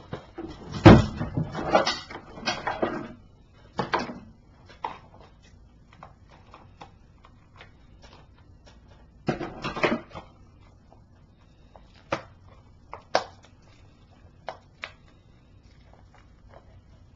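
A shrink-wrapped DVD case is handled, and its plastic wrap is cut with scissors and peeled. A thump and plastic rustling come in the first few seconds, a burst of crinkling plastic follows about ten seconds in, then a few light clicks.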